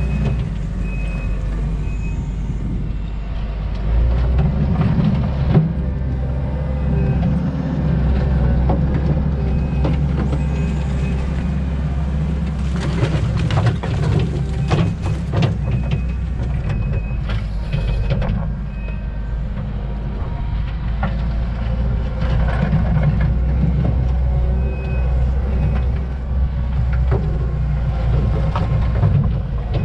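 Kubota SVL90-2 track loader's diesel engine working hard under load as the tooth bucket digs into a dirt and rock pile, with scattered knocks and scrapes of the bucket and rocks. A faint short beeping comes and goes.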